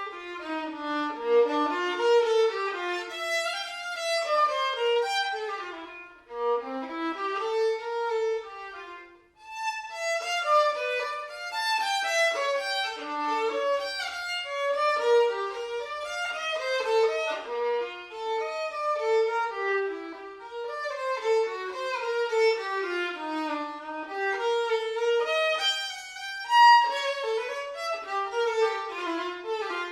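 Solo violin playing a quick, flowing melody, with two short breaks about six and nine seconds in.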